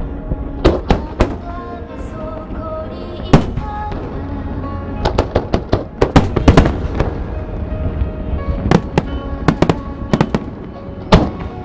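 Aerial firework shells bursting with sharp bangs at irregular intervals, some singly and some in quick clusters of several, over music playing steadily underneath.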